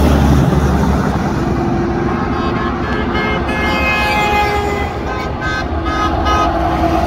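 Road traffic of a long convoy of cars, RVs and trucks passing on a highway, a steady rumble of engines and tyres, with vehicle horns honking several times over it.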